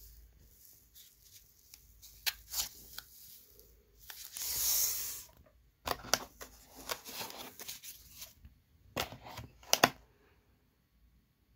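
Foam packaging insert handled and pulled about in a cardboard box: scattered rustles and scrapes, with a longer scraping hiss about four seconds in and two sharp clicks near the end.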